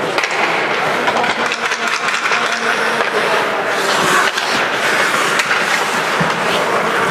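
Ice hockey play: skate blades scraping the ice amid many short clacks of sticks and puck.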